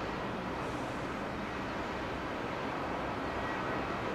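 A steady, even rumble of distant airliner jet engines with no sudden events.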